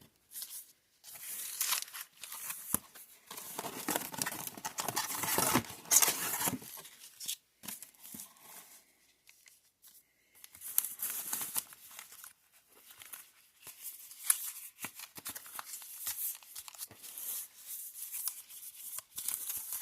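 Crinkly plastic packaging being torn and handled: irregular tearing and crinkling, with a quieter lull in the middle.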